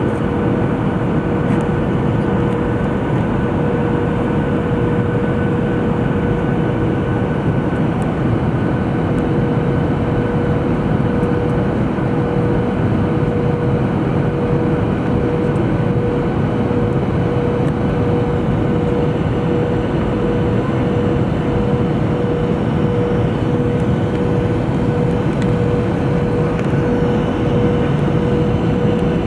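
Jet airliner cabin noise on final approach: the engines and rushing air make a steady din, with a constant whine running through it.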